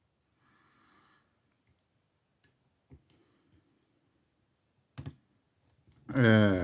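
Lock picking tools working the pins of a Defender padlock under tension: a faint scrape, then a few scattered sharp clicks, the loudest a double click about five seconds in. A short voiced sound from the picker comes near the end.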